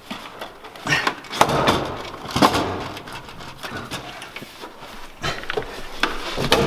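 Irregular knocks, scrapes and rustling of hands working a new fuel pump down into a Ferrari F430's fuel tank opening, busiest in the first few seconds and again near the end.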